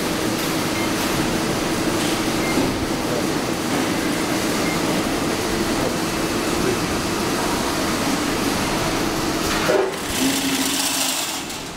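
A chain-link fence weaving machine runs steadily, a continuous mechanical noise with a held hum. Near the end comes a knock, then a short burst of hiss.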